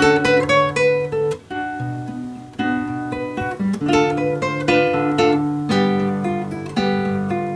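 Solo classical guitar played fingerstyle: plucked melody notes over a bass line and chords, in an arrangement of a Brazilian popular song.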